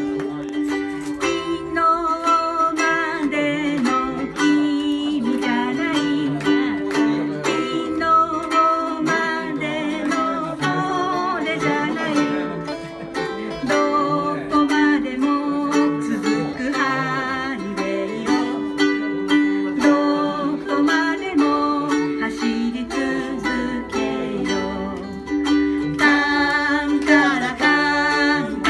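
Ukulele strumming and lead guitar playing a song, with a woman and a man singing.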